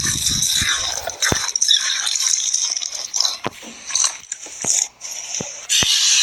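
Slime being squished and worked by hand, a crackly hiss broken by about six sharp clicking pops.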